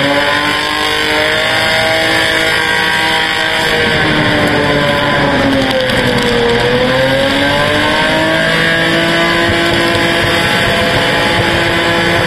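Car engine held at high revs while the car spins donuts in a burnout, tyres smoking. The engine note drops briefly about six seconds in, then climbs back and holds.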